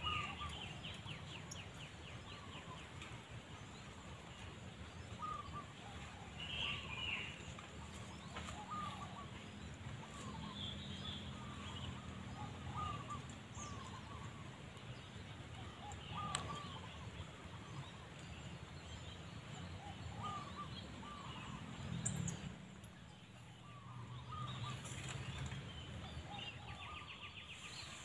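Zebra dove (perkutut) calling: short cooing notes repeated again and again, with higher chirps and trills from other small birds over a low rumble.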